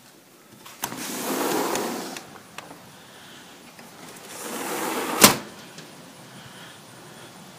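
A sliding glass door rumbling along its track twice, opened and then slid shut, the second run ending in a sharp knock as it meets the frame a little over five seconds in.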